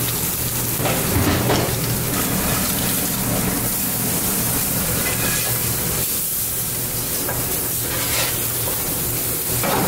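Redfish fillets sizzling steadily in butter in cast-iron skillets, over a steady low hum.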